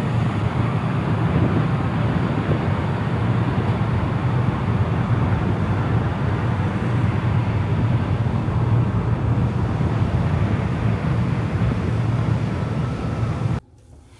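Steady low engine rumble with a rushing noise over it, cutting off suddenly near the end.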